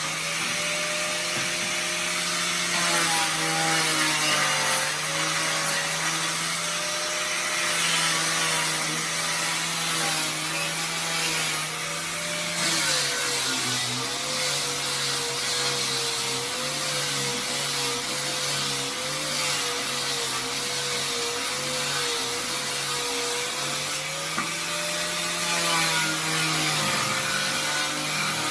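Motorised machinery running steadily: a droning hum with a slightly wavering pitch over a rough hiss, the pitch dropping a little about halfway through and rising again near the end.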